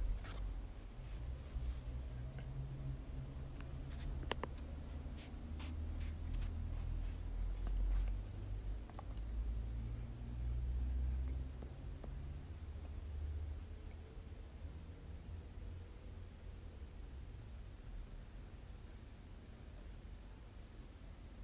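Quiet background with a steady high-pitched whine, a low rumble that comes and goes, and a few soft computer keyboard clicks.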